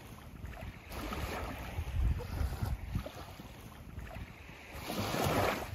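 Wind buffeting the microphone over small waves washing onto the sand, with a louder wash of water about five seconds in.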